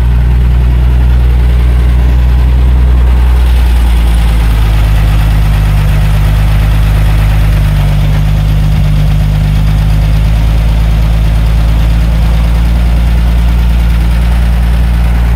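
1948 Bedford truck's six-cylinder petrol engine idling, loud and steady, the idle wavering a little partway through, which the owner puts down to a badly worn carburettor.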